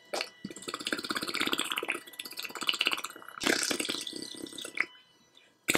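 Percussion massage guns, the Bob and Brad C2 Mini among them, running at their lowest speed settings with the heads pressed to the cheeks, giving a fast buzzing hammer. It starts about half a second in, falters briefly twice, and stops shortly before the end.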